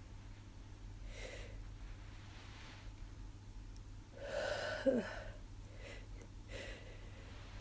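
A person with a cold breathing and sniffing softly, with a louder gasping in-breath and a short voiced catch about four to five seconds in: the hitching breaths that build up to a sneeze.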